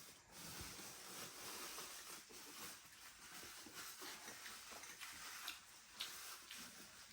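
Faint eating sounds: soft rustling and small scattered clicks as food is handled and chewed.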